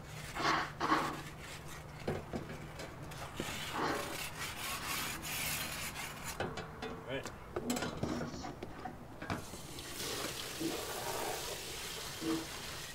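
Grill-cleaning stone scrubbed back and forth over a heavily greased barbecue grate, a rasping scrub in uneven strokes.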